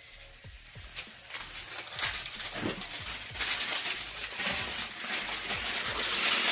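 Flat whole-wheat dough sizzling in a hot, dry skillet at medium heat. The hiss builds over the first couple of seconds after the dough is laid in, then holds loud and steady.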